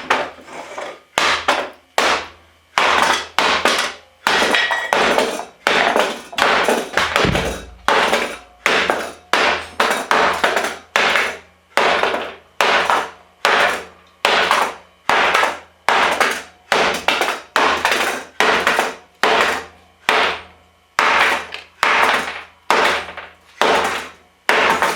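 Hammer blows on a computer, struck over and over at a steady pace of about one and a half blows a second, each hit ringing on briefly.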